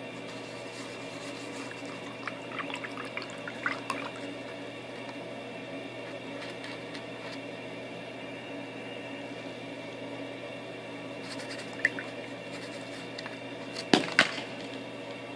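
Paintbrush stirring thin watery paint in a foam plate, with soft liquid squishing and small clicks and taps of the brush against the plate, the loudest two sharp taps near the end, over a steady background hum.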